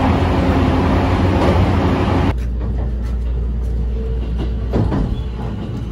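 Interior running noise of a Tokaido Line local electric train at speed: a loud, steady rush with a low hum. About two seconds in it changes abruptly to a quieter, lower rumble as the train rolls slowly into a station.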